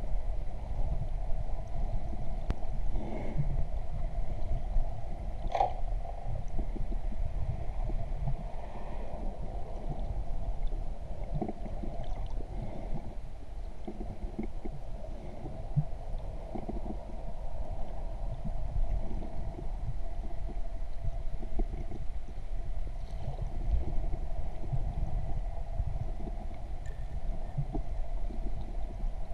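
Muffled underwater noise from a GoPro in its waterproof housing: a low rumble and gurgling with a steady hum. A single sharp click comes about five and a half seconds in.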